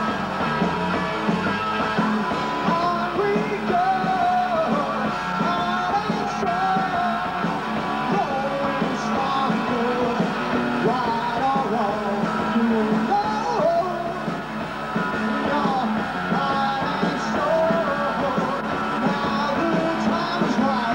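Live rock band playing, with a singer and a loud, dense band sound throughout.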